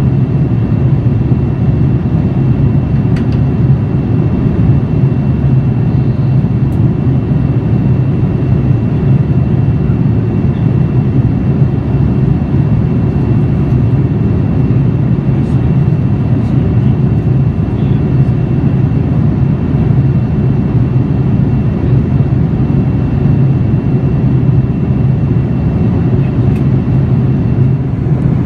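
Steady cabin noise inside a Boeing 787-9 at cruise: an even, low roar of airflow and the GEnx-1B turbofan engines, with a faint steady high tone above it.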